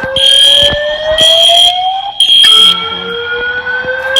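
Fire alarm sounding: a slow rising whoop tone that repeats about every two seconds. Over it, a shrill high-pitched alarm tone beeps in groups of three half-second pulses with a longer pause between groups, the temporal-3 evacuation pattern.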